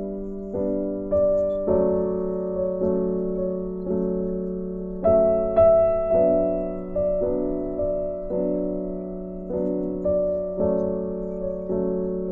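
Background piano music: a slow, gentle piece, a new note or chord struck about every half second and left to fade, with a louder, higher note about five and a half seconds in.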